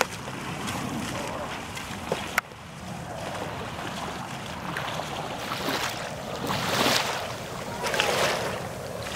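Dragon boat paddles splashing in the water as the crew strokes past, under wind noise on the microphone. A couple of sharp clicks come about two seconds in.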